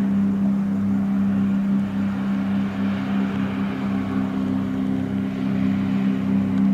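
A 17 m fisheries research boat's engine running at speed, a steady low drone over the rush of its wake and spray.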